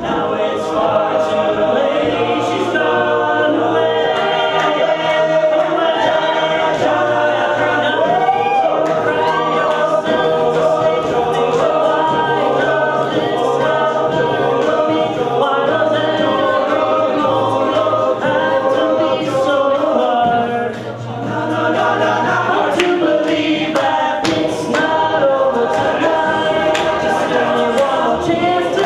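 Male a cappella group singing: a lead soloist on a microphone over close backing harmonies from the rest of the group, with vocal percussion keeping a beat. The sound dips briefly about two-thirds of the way through, then comes back in full.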